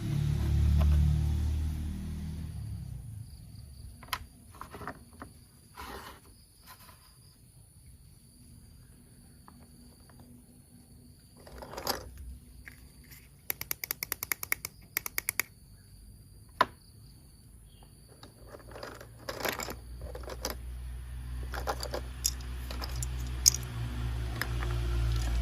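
Plastic toy parts and packaging being handled: scattered clicks, knocks and scrapes, with a quick run of rapid clicking about halfway through.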